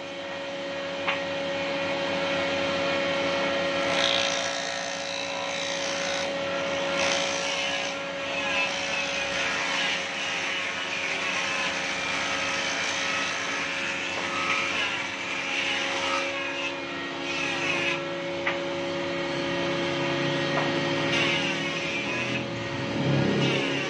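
Combination woodworking machine's jointer running, its motor giving a steady hum. Under the hum, the spinning cutterhead planes a wooden board pushed across the bed, making a rasping cutting noise that swells and fades as the board passes over.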